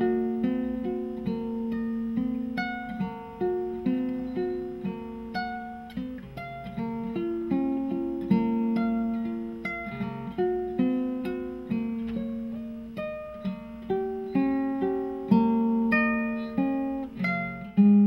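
Guitar music: a melody of single plucked notes, each striking and ringing away, over a low sustained note.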